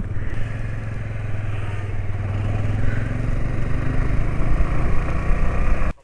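Motorcycle engine running at a steady cruising speed on the move, with wind and road noise; the sound cuts off abruptly just before the end.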